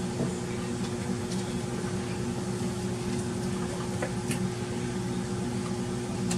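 Steady electrical appliance hum, with a few faint light clicks.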